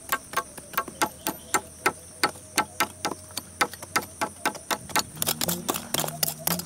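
Rapid, even tapping, about three sharp strikes a second, over a steady high-pitched hum; about five seconds in, low pitched tones join in.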